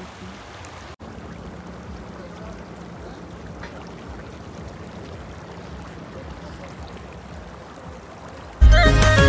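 A steady rushing noise with a faint low hum, broken by a momentary dropout about a second in. Near the end, loud Bollywood-style music with singing starts abruptly.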